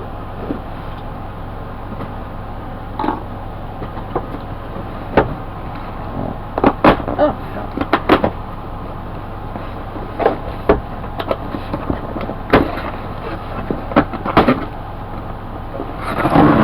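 A cardboard box being opened and its contents handled: scattered taps, knocks and rustles over a steady low hum, with a louder rasping rush near the end.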